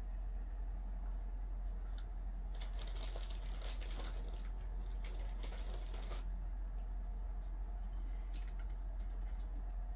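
Trading card packs and cards being handled: a dense run of crinkling and clicking lasting about three and a half seconds, starting a couple of seconds in, then a few faint ticks. A steady low hum lies underneath.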